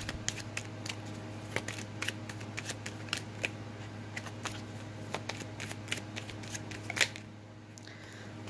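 Deck of tarot cards being shuffled by hand: a quick, irregular patter of card clicks and flicks that stops about seven seconds in, over a faint steady hum.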